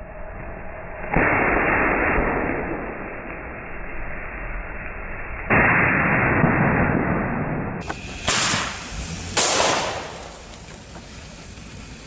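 Fountain fireworks (a crackling glitter cone and a Flower Power fountain) spraying sparks with a rushing hiss. The hiss surges suddenly about a second in and again midway. Two loud pops come around eight and nine seconds in, and then it falls back to a lower hiss.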